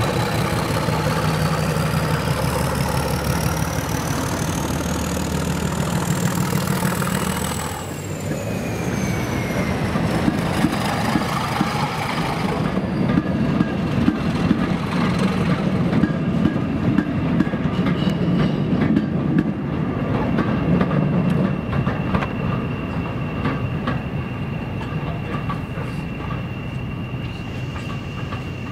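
A diesel locomotive-hauled train passing. The locomotive's engine rumbles, with a high whine that rises for about eight seconds and then falls away. The train's wheels follow, clattering over the rail joints.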